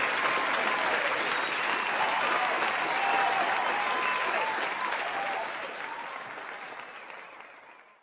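Crowd applauding and cheering, fading out near the end.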